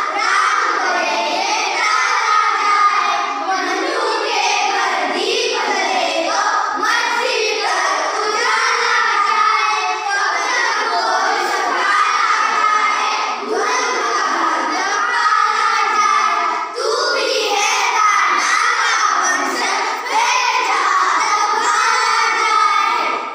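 A group of children singing a Hindi patriotic song together in unison, loudly and close to shouting.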